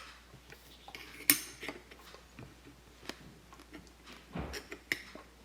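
Scattered small clicks and knocks of a microscope being adjusted by hand, with the sharpest click about a second in and a few more near the end.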